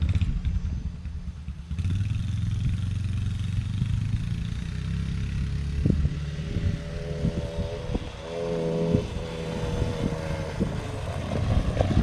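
Suzuki LT-A50 50cc ATV engine running steadily as the quad is ridden, getting louder about two seconds in.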